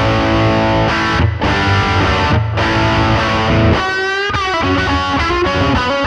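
Electric guitar played through a DemonFX King of Drive two-channel overdrive pedal, giving a driven, distorted tone. Held chords with two short breaks, then from about four seconds in single lead notes that waver with vibrato.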